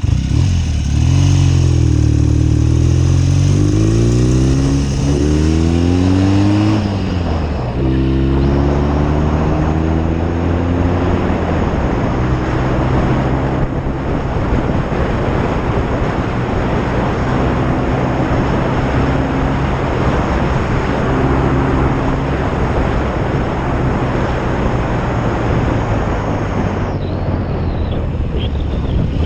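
1972 BSA Lightning 650's parallel-twin engine accelerating, its pitch rising then dropping at each of two gear changes in the first eight seconds, then running at a steady cruise. Heavy wind noise on the helmet-mounted microphone runs under it throughout.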